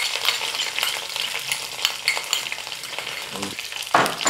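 Crushed garlic, ginger and curry leaves sizzling and crackling in hot coconut oil in a heavy uruli pan, with a brief louder sound near the end.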